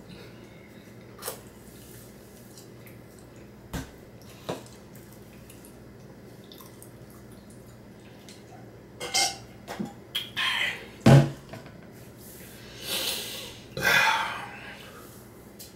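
A person drinking from a plastic bottle, with a few faint clicks at first, then a cluster of crinkling and gulping sounds and one sharp knock, followed by two breathy rushes near the end.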